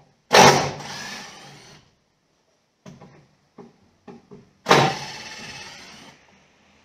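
Cordless drill-driver run twice for about a second and a half each, backing screws out of a 2x4, with a few light clicks and knocks between the runs.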